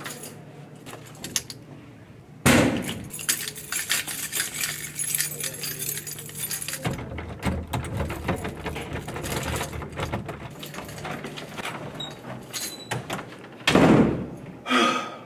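A ring of keys jangling and clicking against a doorknob as a key is worked into its lock. The rattling starts suddenly about two and a half seconds in and goes on for several seconds, and there is a loud burst of noise near the end.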